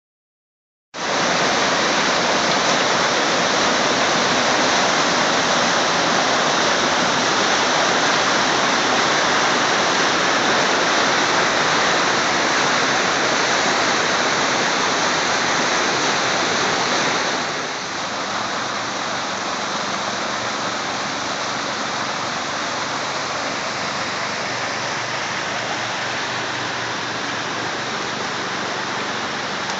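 Steady rush of whitewater pouring over rocks in a boulder-lined outflow channel below a dam, starting about a second in and a little softer in the second half.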